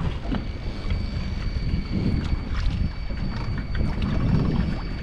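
Wind buffeting the microphone on a boat at sea, a heavy fluctuating rumble, with a thin steady high whine and scattered small clicks over it.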